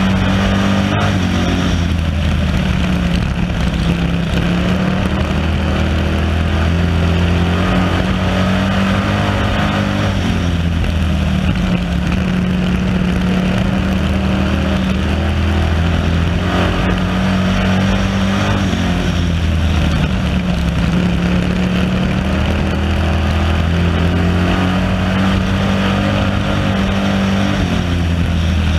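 A stock car's engine running hard, heard from on board the car. Its pitch drops and climbs again every several seconds as the car lifts for the turns and gets back on the throttle down the straights.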